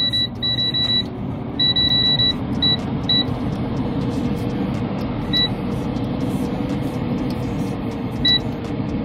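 Air fryer's touch panel beeping with each button press as the timer is set: a quick run of beeps in the first couple of seconds, then single beeps spaced out, the last near the end. Under them runs the steady hum of the air fryer's fan.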